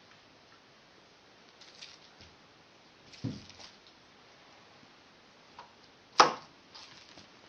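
A few scattered light knocks and taps in a small room, with one sharp click a little after six seconds in as the loudest sound.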